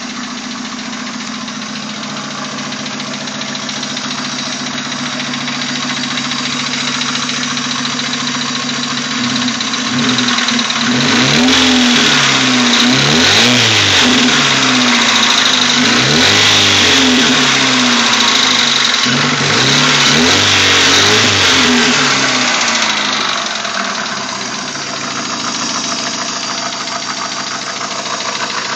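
Hyundai Elantra's G4ED 1.6-litre 16-valve four-cylinder engine running cold with its hydraulic lifters knocking. About a third of the way in it is revved up and down several times, then settles back to a steady idle.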